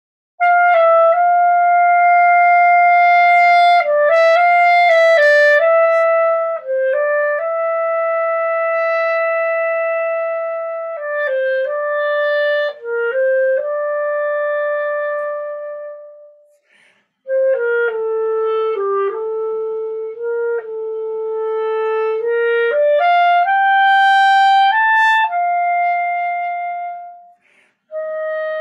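Solo clarinet, a Buffet Légende Green Line, playing two slow phrases of held notes that step up and down in pitch, with a brief break for breath about halfway through.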